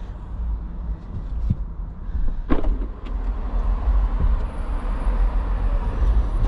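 Car idling with a steady low rumble, and a couple of short knocks, the clearest about two and a half seconds in.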